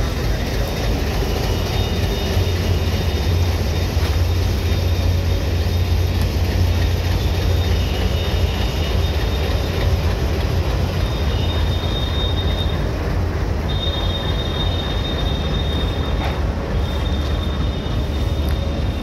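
Coaches from the derailed North East Express being hauled slowly along the track: a steady low rumble, with a high wheel squeal that comes and goes several times.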